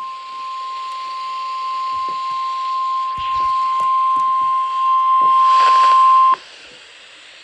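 NOAA Weather Radio's 1050 Hz warning alarm tone, one steady beep growing gradually louder until it cuts off abruptly about six seconds in, leaving faint radio hiss. It is the alert tone that opens the weekly test, here sent a second time.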